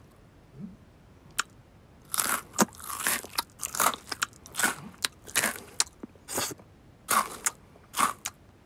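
Cartoon sound effect of a cat biting and chewing food: a quick run of crunchy munches, about two or three a second. It starts about two seconds in, after a near-quiet start with one small click.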